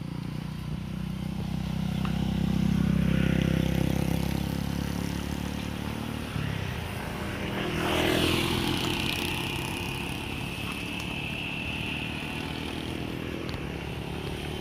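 Road traffic passing: an engine hum swells a couple of seconds in, then a vehicle, most likely a motorcycle, sweeps past about eight seconds in with a falling pitch. A steady high tone follows for a few seconds.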